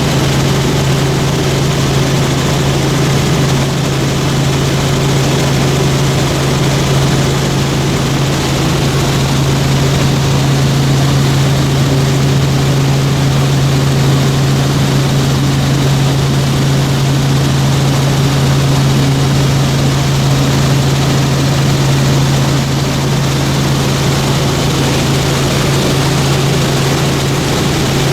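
Helicopter in flight, heard from inside the cabin: engine and rotor running steadily with a constant low hum and a steady rushing noise.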